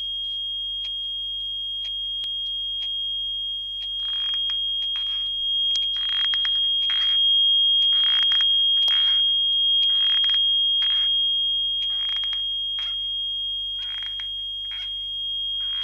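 A steady high-pitched ringing tone, staged as tinnitus, runs under a few sharp clicks and then a run of short rasping creaks about once a second, staged as arthritic knees.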